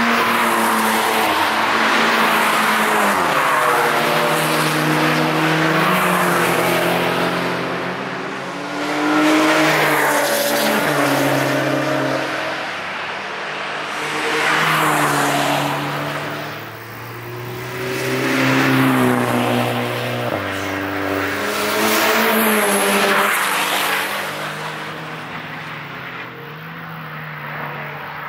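Several cars passing one after another at speed on a race track. Their engines rise and fall in pitch as they pass, some shifting gear, over tyre and road noise. The sound fades near the end.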